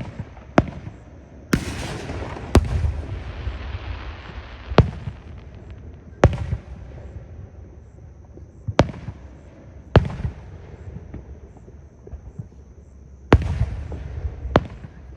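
Aerial fireworks display: about ten sharp bangs one to two seconds apart, some followed by a few seconds of crackling.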